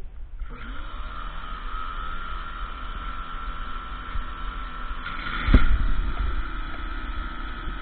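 Ryobi RY14122 electric pressure washer starting up about half a second in, its motor rising briefly in pitch and then running steadily with the hiss of the spray; it is not that loud. A loud sudden knock comes about five and a half seconds in.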